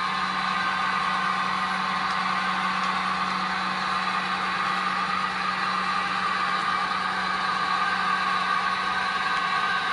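Sound decoder of an HO-scale Rapido GMD SW1200RS model diesel switcher playing its prime-mover sound through the model's small speaker, running steadily at one pitch.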